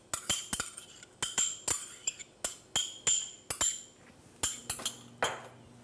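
A spoon tapping and scraping against a small ceramic bowl, a quick irregular run of ringing clinks as minced garlic is knocked out into a saucepan of melted butter. The clinks stop about five seconds in.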